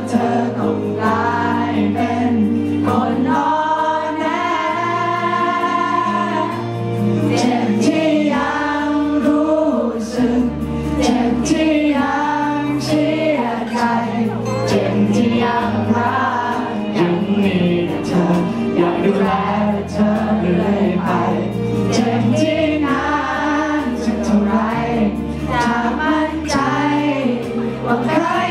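Male vocalist singing a Thai pop song live into a handheld microphone over instrumental accompaniment with a steady bass line.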